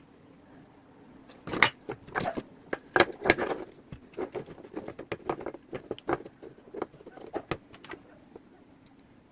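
A run of short, irregular clicks and taps of small hard objects being handled, densest and loudest from about one and a half to three and a half seconds in, then thinning out.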